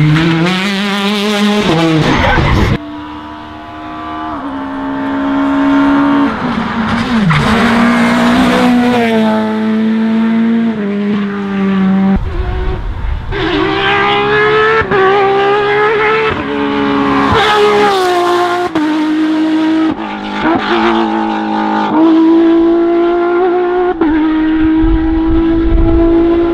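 Rally cars' engines revving hard and changing gear, the pitch repeatedly climbing and dropping. The sound comes in several short cuts from car to car.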